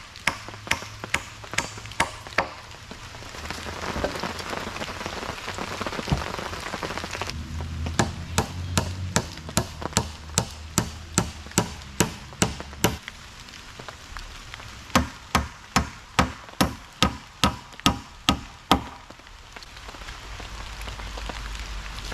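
Hammer driving nails into framing lumber: runs of quick, sharp blows, about three a second, with pauses between the runs.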